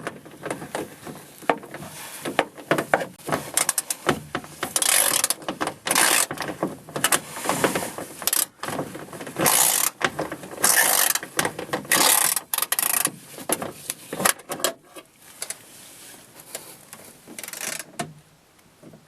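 Socket ratchet clicking in repeated short bursts, mixed with metal clanks and rattles of tools inside a van door, as the door-handle bolts are worked loose.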